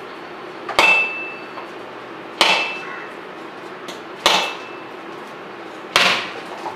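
A large kitchen knife striking a whole coconut held in the hand: four sharp cracks, spaced roughly every second and a half to two seconds, the first followed by a brief metallic ring from the blade, as the shell is cracked open.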